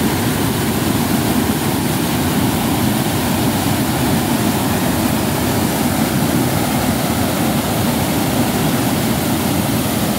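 Floodwater rushing over a reservoir spillway in full spate: a loud, steady roar of whitewater, heaviest in its low rumble.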